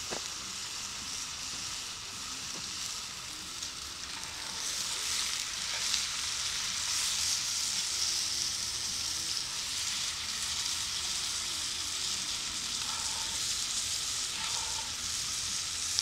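Meatballs, pineapple, peppers, onion and celery sizzling in a 12-inch cast iron Dutch oven as they cook down, stirred with a spatula. The sizzle is a steady high hiss that gets louder about four seconds in.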